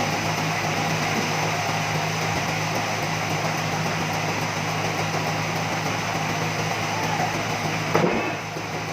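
Sawmill machinery running steadily: a motor hum with a constant hiss over it. About eight seconds in, a short knock and pitch sweep, after which it runs a little quieter.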